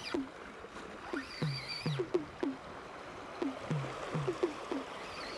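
Background music: a looping pattern of short, falling low notes in pairs under a high held tone, repeating about every two seconds.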